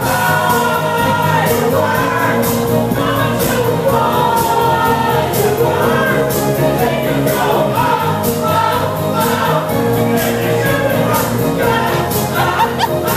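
A song with choir-like singing over a steady drum beat.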